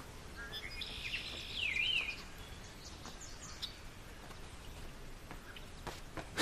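Birds chirping, a short run of quick rising-and-falling calls in the first two seconds, over a faint steady outdoor background hiss.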